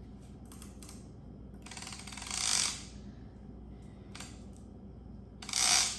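An offshore fishing reel's ratchet clicker buzzing as the spool spins and line pays out. There are a few separate clicks first, then two fast runs, a longer one about two seconds in and a shorter, louder one near the end.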